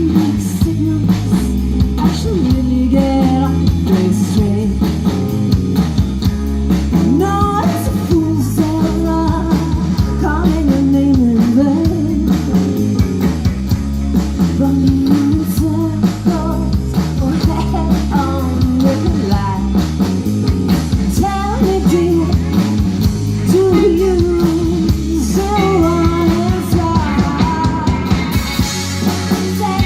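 Live rock band playing: singing over electric guitar, bass and drum kit.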